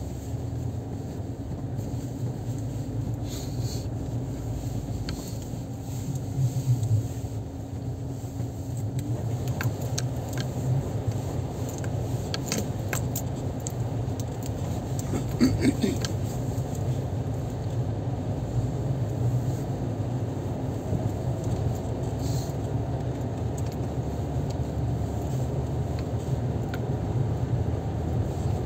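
Steady engine and road noise heard from inside a car's cabin as it drives, with a steady hum that fades out about nine seconds in. A few light clicks and rattles come between about ten and sixteen seconds in.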